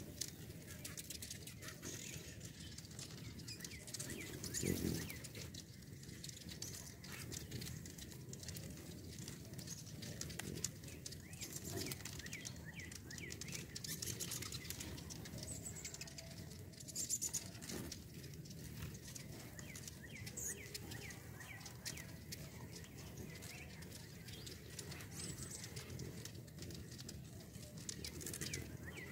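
Hummingbirds at nectar feeders: many short, high, thin chips and squeaks from several birds chasing one another, over a low whirr of wings, with a few louder passes close by.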